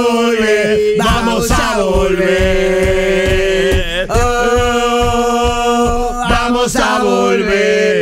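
Music: a voice singing long held notes over a steady beat.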